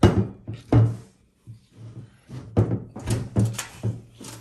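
Tubular metal handle of a folding garden kneeler being pushed and knocked by hand into its socket on the metal frame: a series of sharp knocks and clunks as it is pressed down to lock in place.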